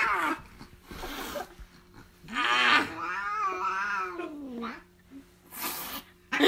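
Domestic cat yowling: a short call near the start, then one long wavering call from about two seconds in that falls in pitch at its end.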